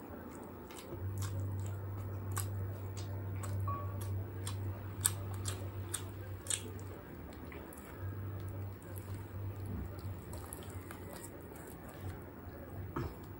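Close-miked eating sounds of a person chewing spit-roasted chicken: many short wet clicks and smacks of the mouth, along with the meat being pulled apart by hand. A low steady hum runs underneath, dropping out for about a second around the middle.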